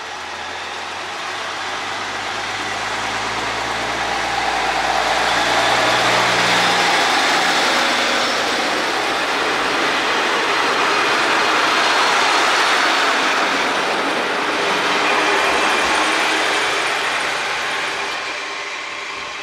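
KiHa 37 diesel railcar pulling away from a station. The engine note builds as it accelerates, the sound swells as the cars run past with wheel-on-rail noise, then fades as the train draws away.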